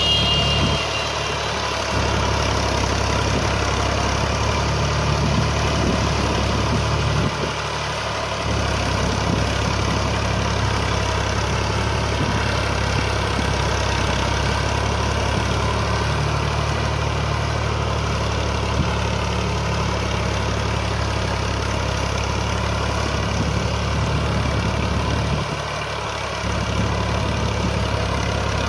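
Fiat 480 tractor's three-cylinder diesel engine running steadily under load while pulling a plough through dry soil. Its level dips briefly about a second in, around seven seconds and near the end.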